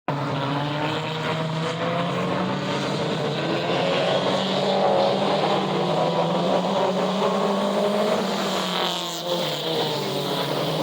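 Several race car engines running on track together, their engine notes rising and falling over one another above a steady lower drone.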